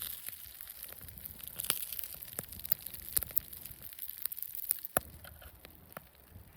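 Irregular sharp crackles and snaps, many a second, the loudest about two and five seconds in.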